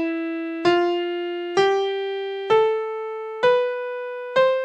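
Piano playing the upper half of a C major scale, ascending one note at a time. A new note is struck roughly every second, each a step higher and decaying before the next, up to the octave C, which rings on near the end.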